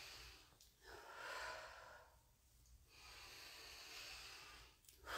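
A woman breathing deeply in time with slow seated spine rotations: two long, soft breaths, each a second or two long, with short pauses between.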